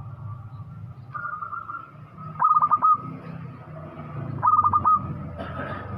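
Zebra dove (perkutut) cooing loudly: two call phrases about two seconds apart, each a quick run of short notes ending in a longer drawn-out note.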